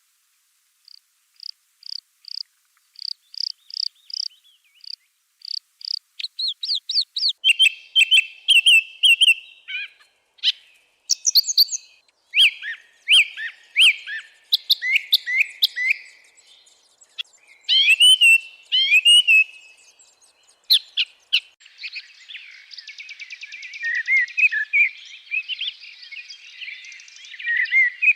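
Songbirds of a May forest singing. It opens with a series of short high notes that come faster and faster, then several birds' songs overlap, with trills and warbles, and it thickens into a dense chorus near the end.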